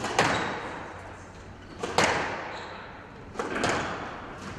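Squash rally: the ball is struck hard three times, about every one and a half to two seconds, each shot a quick double knock that rings out in the court.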